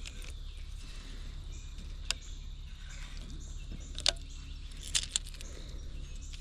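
A few sharp clicks over a steady low outdoor rumble: one about two seconds in, one about four seconds in, and two close together about a second later.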